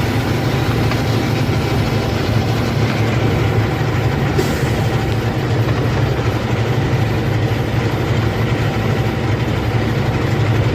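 Old plow truck's engine running steadily at low speed, a constant low hum under road and mechanical noise.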